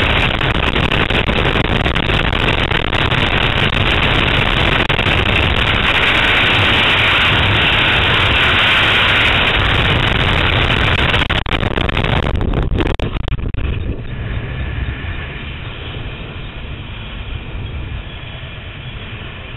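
Loud rush of freefall wind on a helmet-mounted camera's microphone. About 13 seconds in it drops off sharply as the parachute opens, leaving quieter, fluttering wind under the canopy.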